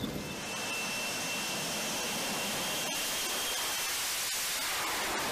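F-35B fighter jet engine running: a steady rushing roar of jet noise with a faint high whine that fades out about four seconds in.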